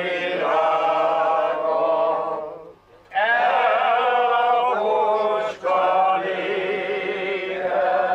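A small group singing a Hungarian song unaccompanied, in long held phrases with vibrato and short breaks for breath about three seconds and five and a half seconds in.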